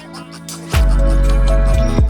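Background electronic music with a heavy bass line and drum hits. It drops out briefly at the start, then the full beat comes back in under a second in.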